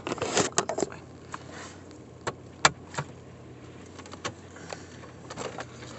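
Scattered sharp clicks and rustling as a phone is handled and turned inside a car, over a steady low hum. The handling is busiest in the first second, with one sharp click a little before the three-second mark.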